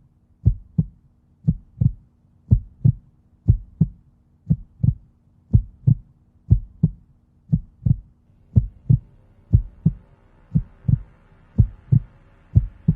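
Heartbeat sound effect: low paired lub-dub thumps, about one beat a second, steady throughout. A faint hiss comes in about halfway through.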